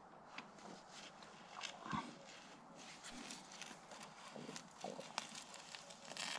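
Faint, irregular scrapes and light taps of gloved hands working mortar into the joints of a basalt-stone mailbox base, with one soft thump about two seconds in.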